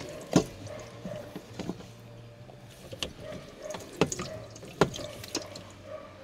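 Kitchen items being handled and set down in a cramped space: a string of separate sharp taps and clunks. The loudest comes about half a second in, with more near four and five seconds in.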